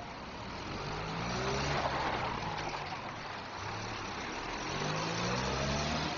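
Motor vehicle engines running slowly along a wet, flooded street, growing louder twice, over a steady wet hiss.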